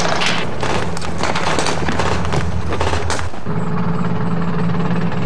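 Rapid, irregular gunfire, many shots close together, for about the first three seconds. It gives way to an armoured vehicle's engine running with a steady drone.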